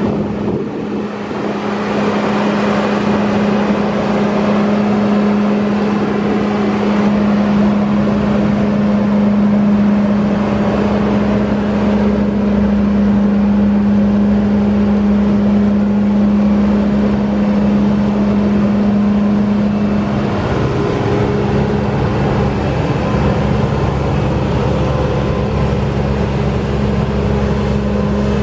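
Large farm machine's engine running steadily under load, with a strong constant hum over a wide mechanical noise. About twenty seconds in the hum falters briefly and a deeper rumble joins it.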